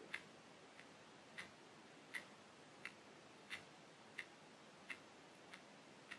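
A faint, regular ticking, about three ticks every two seconds, over near silence.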